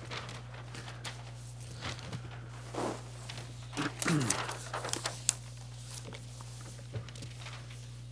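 Meeting-room tone under a steady low hum, with scattered small clicks and rustles, a brief falling sound about four seconds in, and one sharp click a little after five seconds.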